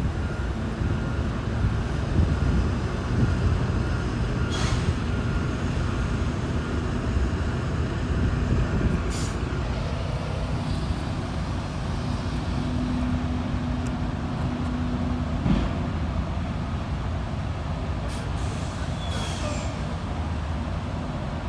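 Semi truck's diesel engine running steadily with a low rumble, with a few brief hisses breaking in now and then.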